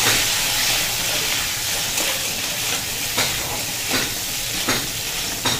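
Crab pieces sizzling as they fry in hot mustard oil in a metal wok, stirred with a metal spatula that scrapes and knocks against the pan every second or so.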